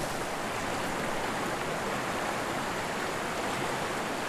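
Small mountain stream running over rocks: a steady, even rush of water.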